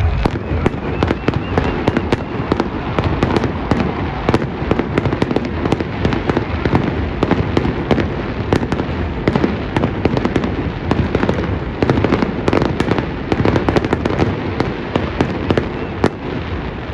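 Aerial fireworks going off in a continuous barrage: many sharp bangs and crackles each second over a steady rumble.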